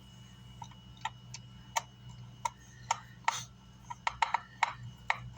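Irregular small clicks and ticks of a screwdriver working the screws that hold an amplifier's circuit board down in its chassis. The clicks come closer together in the second half, over a steady low hum.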